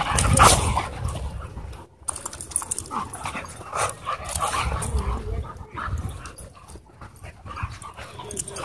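A husky and other dogs play-fighting at close range: bursts of dog vocalising and scuffling as they wrestle, loudest in the first second.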